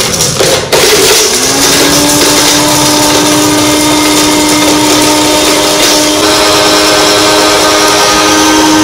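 Bullet mixer grinder's motor running at speed as it grinds dry ginger into powder. It cuts out briefly under a second in, then spins back up to a steady whine.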